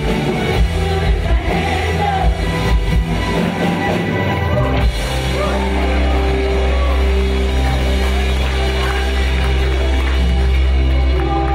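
Live worship band playing, with drums beating for about the first five seconds. The band then holds one long sustained chord over a steady low bass note.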